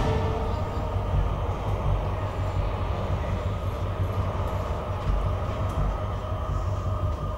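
Steady low mechanical rumble in an underground metro station, with no clear rhythm or pitch.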